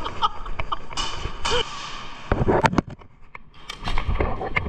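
Sharp pops of airsoft guns firing: a quick cluster about two and a half seconds in and a few more near four seconds, over muffled movement and voices.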